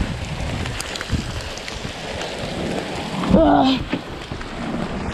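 Rain falling steadily, with a few dull knocks and a brief voice sound about three and a half seconds in.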